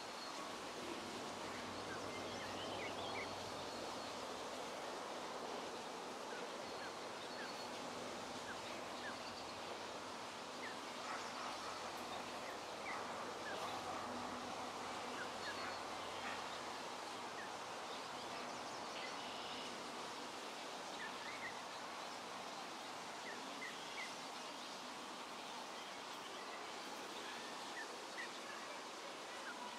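Poultry calling faintly, many short calls and chirps scattered among a steady outdoor background hiss.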